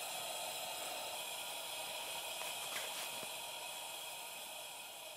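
Wood fire burning in a wood-burning stove: a steady hiss with a few faint crackles, slowly fading out near the end.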